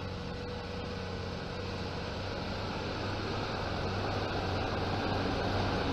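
New Holland T7 tractor's diesel engine running steadily under load, a low even drone with hiss over it that slowly grows louder.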